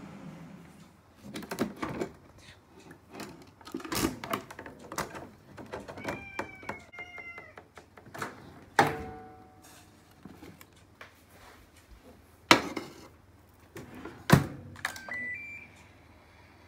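Sharp knocks and clatter from a metal loaf tin being handled and set into an oven, with a few short high-pitched tones in between.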